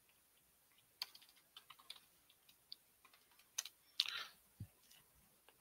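Computer keyboard typing: faint, scattered key clicks in short runs, busiest about four seconds in, with a soft low thump shortly after.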